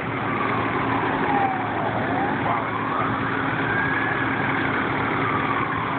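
Emergency vehicle siren in a slow wail: its pitch falls, rises and falls again over a few seconds at a time, over a steady rumble of idling engines.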